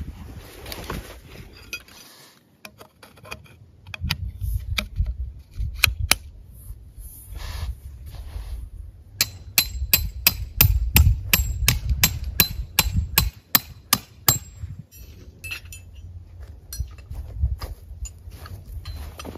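Metal tent pegs being driven with a hammer: a run of sharp, ringing strikes about three a second for some five seconds in the middle. Before it come scattered clinks and rustling as the tent bag is opened and the pegs are handled.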